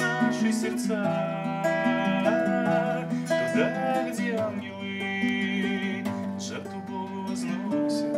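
Acoustic guitar strumming chords, with a few long wavering melody notes held over them, as an instrumental passage of a song.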